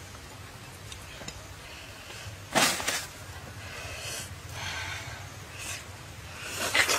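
Close-up eating sounds of a person biting into and chewing soft ripe papaya. A loud bite comes about two and a half seconds in, softer chewing follows, and another loud bite comes near the end.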